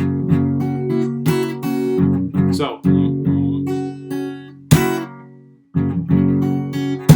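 Acoustic guitar played fingerstyle: a bass line and pentatonic lick in E, with sharp percussive slaps on the strings in between.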